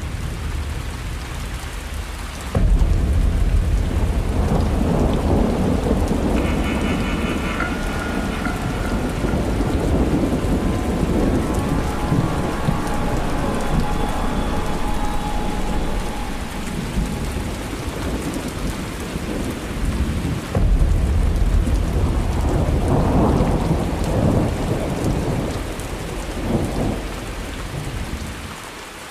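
Heavy rain with thunder rumbling throughout; a loud clap of thunder breaks in suddenly about two and a half seconds in, and another about twenty seconds in.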